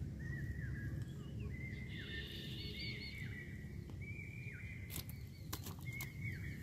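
A bird calling repeatedly in short chirping notes, each dropping at the end, over a steady low outdoor rumble. A few sharp clicks come near the end as a freshly caught fish is handled on the sand.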